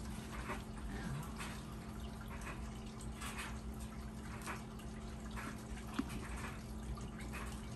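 Steady trickle of water from an aquarium, with a low steady hum under it. Scattered light clicks and rustles throughout, the sharpest about six seconds in.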